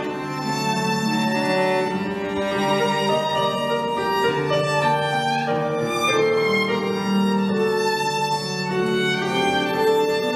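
Violin and cello playing together, bowed notes held and overlapping in a continuous melody.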